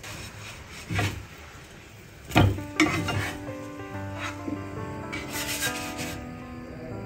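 A metal spatula scraping across a black iron griddle as it slides under slices of French toast and turns them over. There is a sharp knock about a second in and a louder one about two and a half seconds in.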